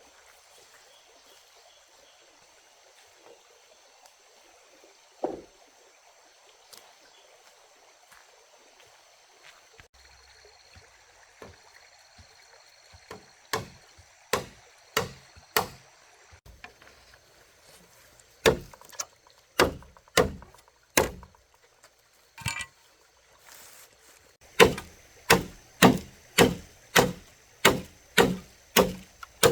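Repeated sharp blows of a tool on wood: a single knock, then short groups of strikes, settling near the end into a steady run of about two strikes a second.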